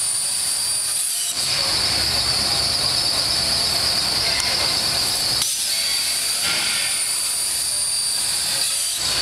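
CNC plasma cutting torch cutting slots in 4-inch square steel tube: a steady high-pitched hiss with a whine, briefly breaking about a second in and again just past the middle as the cut changes.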